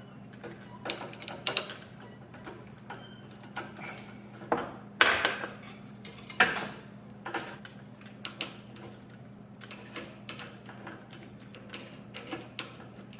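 Metal parts clinking and knocking irregularly as they are handled in a workshop. The two loudest knocks come about five and six and a half seconds in, over a steady low hum.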